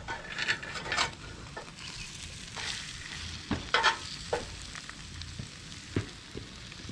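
Water spraying with a steady hiss, with a few sharper taps and clicks.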